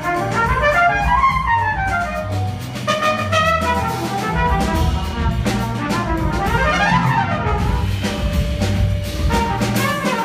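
A jazz-fusion band and a full orchestra playing live, with the brass section prominent over a steady drum and bass pulse. Two quick runs climb and fall back in pitch, one about a second in and another near seven seconds.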